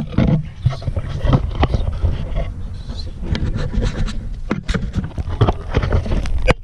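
Rapid, irregular knocks and scraping over a low rumble.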